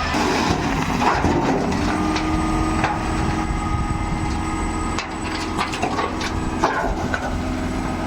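Excavator engine running steadily, with repeated sharp knocks and cracks throughout.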